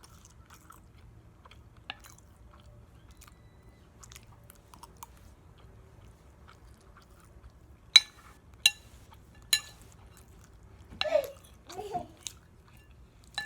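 Quiet chewing of syrupy pancakes close to the microphone. About eight seconds in come three sharp clinks of a metal utensil on the plate, then a brief voiced murmur.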